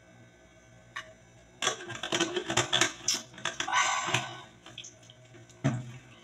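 Close handling noise: a single click, then a quick run of clicks, knocks and rustling lasting about two and a half seconds, and one more sharp knock near the end.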